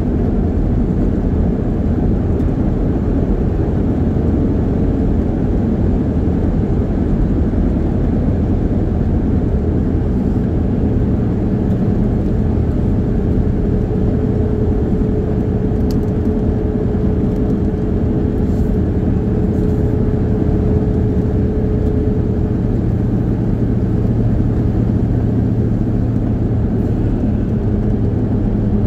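Steady road and engine noise inside a moving car's cabin while cruising. A low hum grows stronger near the end.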